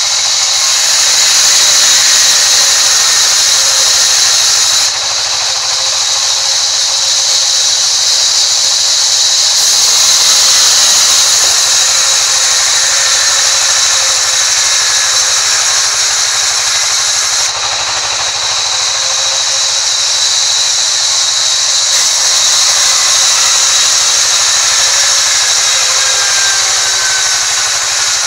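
Vertical band sawmill ripping a thick timber beam lengthwise: a loud, steady sawing hiss over the machine's running drone, with a faint whine that slowly falls in pitch over the second half.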